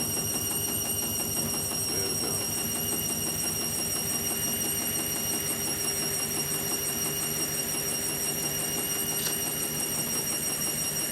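Indesit MTWC71252WUK washing machine running steadily, its motor humming and drum turning as it tries to spread a lone bath mat to pass its balance check for the spin: the load is unbalanced. There is a faint tick about nine seconds in.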